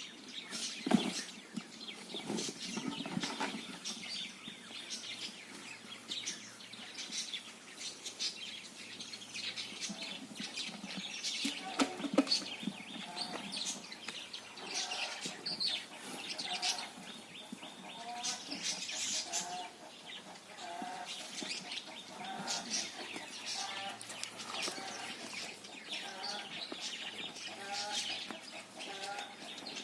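Farmyard birds calling: clucking and chirping, with short calls repeating about once a second through the second half.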